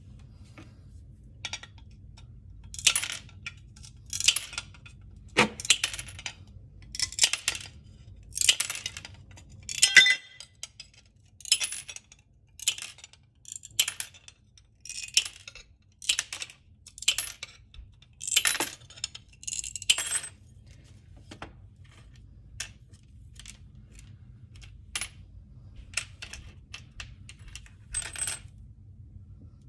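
A hand cutting tool snipping repeatedly, about one short crisp cut every second or so, thinning out to a few fainter clicks near the end.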